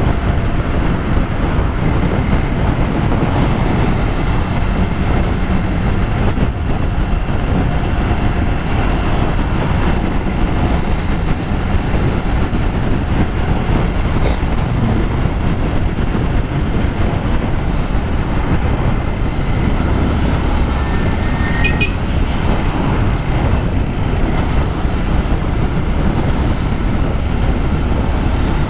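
Loud, steady rush of wind buffeting the helmet microphone and road noise while riding a Yamaha XTZ Crosser motorcycle at expressway speed in strong gusty wind, with passing traffic.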